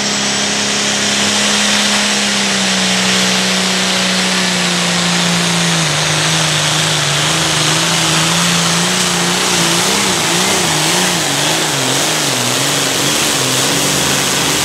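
John Deere 4430 hot farm pulling tractor's 466 cubic-inch turbocharged diesel running flat out under load as it drags the weight sled, with a high whine over the engine. The engine note sags slowly about halfway through, then wavers up and down over the last few seconds.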